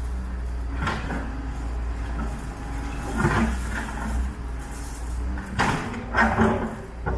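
Wheeled excavator's diesel engine running steadily while its bucket scrapes and knocks through demolition rubble, with sudden scraping clatters about a second in, around three seconds in, and several in quick succession near the end.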